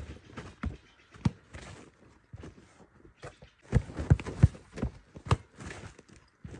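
Basketball being dribbled on a packed dirt path, thudding in uneven bounces, with scuffing footsteps on the dirt; a quicker run of loud bounces comes about four seconds in.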